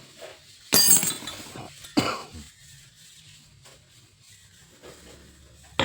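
Metal parts of a disassembled alternator clinking and rattling as they are handled: a short clatter about a second in, a sharp click about two seconds in, and another near the end.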